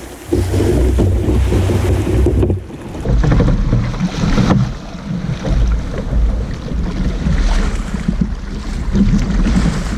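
Wind buffeting the microphone over the wash of sea water around a kayak, an uneven low rumble with a brief drop about two and a half seconds in.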